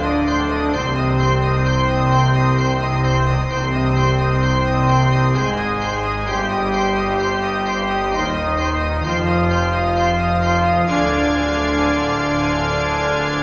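Slow organ music of long held chords that shift every second or two.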